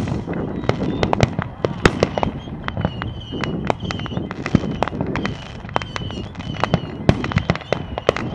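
Fireworks going off: a dense, irregular run of sharp pops and bangs, several a second, with a loud bang right at the start.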